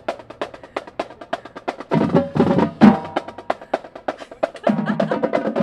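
Live band playing with fast, rapid drum strokes. Sustained pitched notes join the drumming about two seconds in and again near the end.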